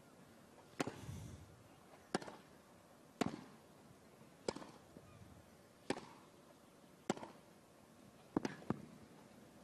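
Tennis rally on a grass court: rackets strike the ball back and forth, a sharp pock roughly every second and a quarter, about eight hits in all, with two in quick succession near the end.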